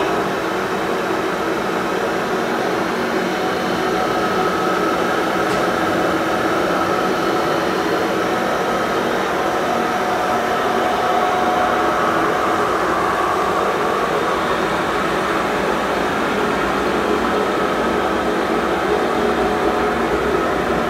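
SMTCL STC-34300 CNC hollow spindle lathe running with its 33-inch four-jaw big-bore chuck spinning on the 14-inch-bore spindle: a steady machine hum and whine with a few faint held tones over it.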